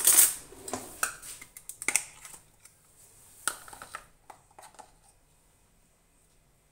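A scuff, then a series of sharp clicks and taps over the first four seconds as a metal tin of smoked paprika is handled and its plastic flip-top dispenser lid is clicked open.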